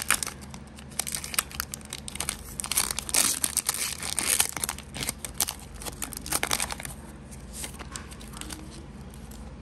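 Foil Pokémon booster pack wrapper crinkling and tearing as it is pulled open and the cards are drawn out. The dense crinkling thins out to occasional faint rustles after about six or seven seconds.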